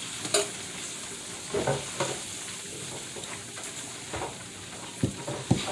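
Food frying in a pan with a steady sizzle, and a few short knocks of a utensil against the pan as it is stirred.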